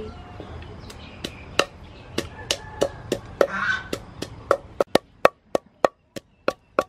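Wooden pestle pounding fresh red chilies in a wooden mortar, short knocks about three a second. About five seconds in the background drops away and the knocks sound louder and sharper.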